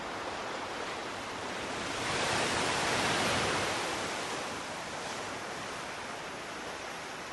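Ocean surf: a steady rushing hiss, with one wave swelling in about two seconds in and washing back out.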